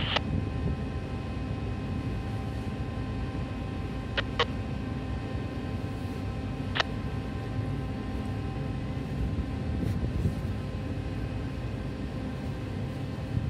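Boat engine running with a steady low rumble and a faint mechanical hum. Short sharp clicks come twice about four seconds in and once near seven seconds.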